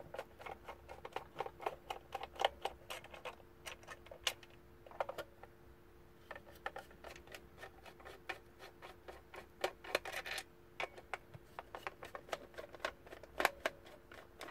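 Screwdriver backing Phillips screws out of the plastic case of a GM MDI diagnostic interface: quick irregular runs of small clicks and ticks, with a short louder patch about ten seconds in, over a faint steady hum.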